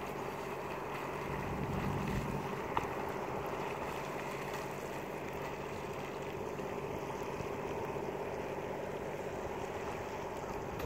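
Steady wind noise on the microphone, with a single sharp click a little under three seconds in.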